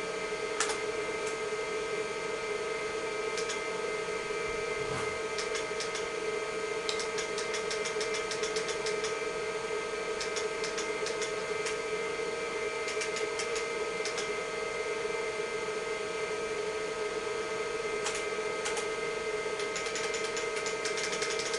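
Vintage IBM PC XT running with the steady hum of its cooling fan and spinning hard drive, a few constant pitches over a soft whir. Runs of sharp key clicks from its IBM keyboard come in clusters as keys are pressed to leave the menu system.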